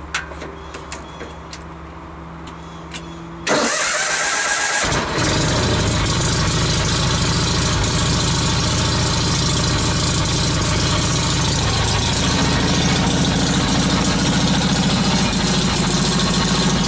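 Cub Cadet 982 garden tractor's Onan twin-cylinder engine cold-started on a freshly installed AGM battery. After a few faint clicks, the starter cranks for about a second and a half, the engine catches quickly about five seconds in, and then it runs steadily.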